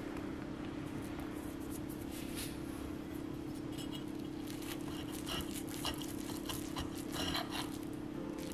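Knife and fork cutting into a frittata of egg-soaked toasted bread, the blades scraping and clinking on the plate in a run of short scrapes and clicks from about two seconds in, over a steady low hum.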